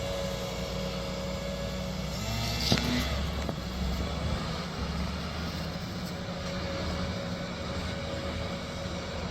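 A farm vehicle's engine running steadily, with a single sharp knock about three seconds in.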